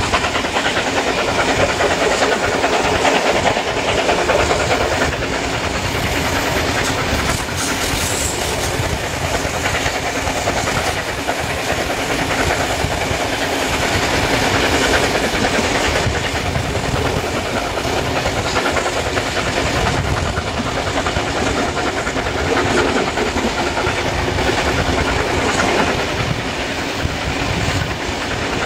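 Heritage passenger carriage rolling along the track at speed, its wheels clattering steadily over the rails, heard from an open carriage window with the rush of passing air.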